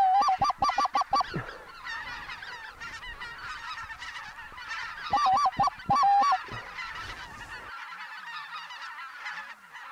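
Geese honking: two loud runs of quick honks, about six in the first second and about five more past five seconds in, over the steady chatter of a large flock of geese calling.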